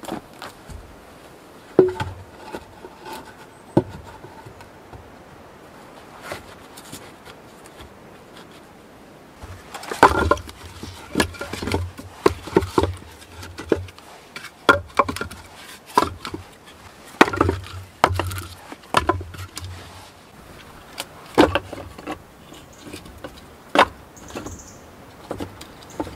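Split firewood being stacked onto log rails on the ground, pieces of wood knocking and clattering against each other. A few single knocks come first, then a long run of quick wooden knocks from about ten seconds in.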